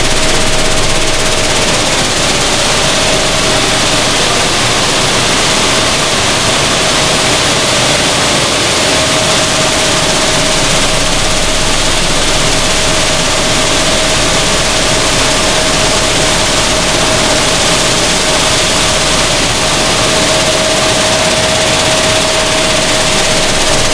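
Sunflower seed hulling machinery running: a loud, steady, even noise of the machine and the moving seeds, with a constant mid-pitched hum throughout.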